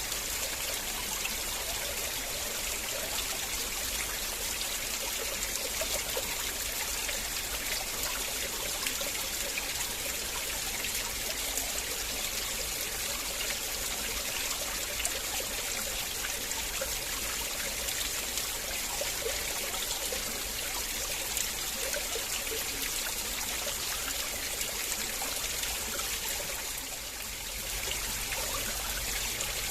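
River water flowing and trickling steadily over stones, with a brief dip in level near the end.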